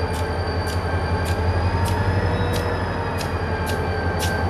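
Norfolk Southern EMD GP40-2 locomotive with its turbocharged V16 diesel, and its RP-E4D slug, moving slowly while shoving a freight train. There is a steady low engine drone with a high whine over it, and a regular high click about every two-thirds of a second.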